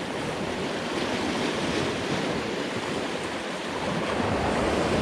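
Sea surf breaking and washing over rocks: a steady rush of water that swells slightly near the end.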